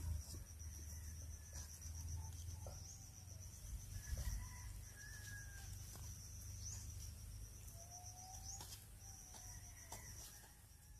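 Quiet rural outdoor ambience: an insect's steady, high, pulsing trill runs throughout. Occasional short bird calls and a few faint clicks sit over a low rumble.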